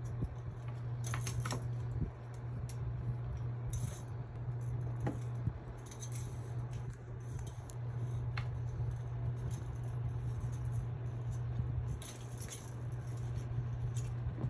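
Kittens' claws scrabbling and clicking on a Vornado pedestal fan's plastic pole and base, the stand rattling in short irregular bursts, over a steady low hum.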